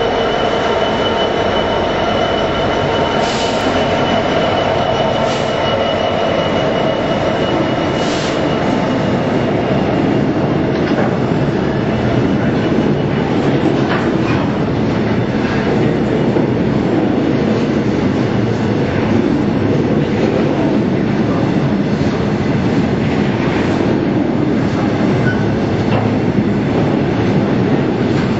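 EWS Class 66 diesel locomotive, with its EMD 12-cylinder two-stroke engine running, passes close by hauling a coal train. The engine note gives way after about ten seconds to the steady rumble of the coal wagons rolling past, with occasional clicks from the wheels.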